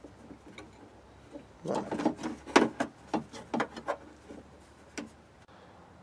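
Clicks and knocks of a 2002 Ford Explorer door latch being worked by hand, as its door-ajar switch is pressed in and released: a quick run of sharp clicks about two seconds in, then a few scattered ones.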